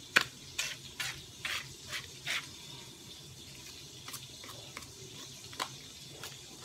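Stone pestle and plastic spatula scraping wet ground chili paste around a stone mortar (cobek and ulekan). About two strokes a second at first, with a sharp knock just after the start, then fainter scraping with occasional light taps.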